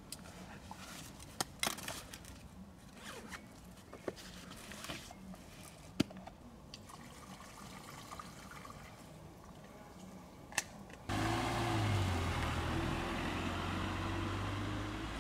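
Scattered small clicks and knocks as gear is handled by hand. About eleven seconds in, it gives way abruptly to a car driving by on the road, a steady engine and tyre hum that is the loudest part.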